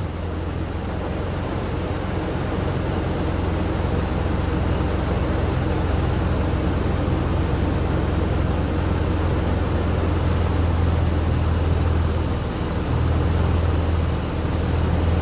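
Jeep Liberty engine idling steadily with a low, even hum, running while it is being checked for a misfire.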